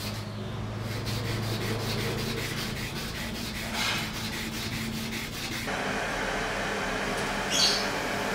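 Abrasive paper rubbed by hand back and forth along a steel knife blade, a rapid dry scratching, over a steady low hum; one sharper stroke stands out near the end.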